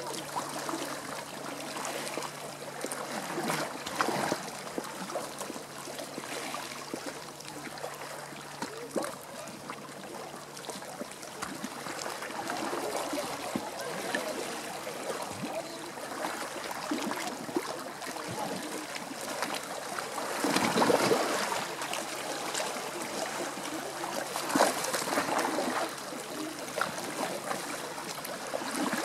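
Sea water lapping and splashing, a steady wash with louder surges about four seconds in and around twenty and twenty-five seconds in.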